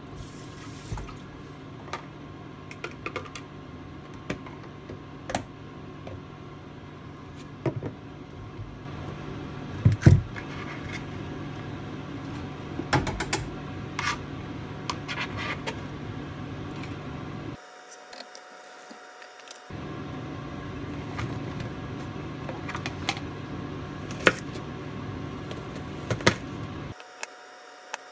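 Kitchen prep sounds: scattered clicks and knocks of a knife, plastic containers and lids on a plastic cutting board, with a heavier knock about ten seconds in, over a steady low hum and hiss. The background hum cuts out briefly twice.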